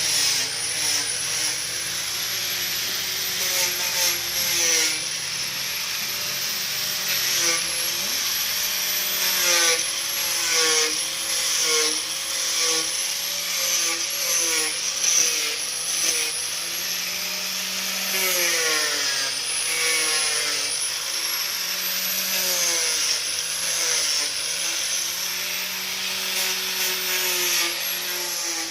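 Sawmill saw running and cutting wood, a steady mechanical whine whose pitch repeatedly dips and recovers as the blade takes load, with a noisy hiss and occasional knocks.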